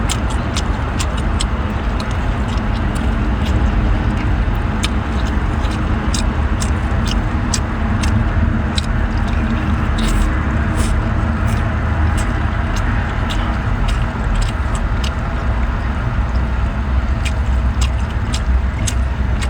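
Eating of crab and shellfish: frequent sharp clicks and cracks at irregular intervals, about one or two a second, over a steady low rumble.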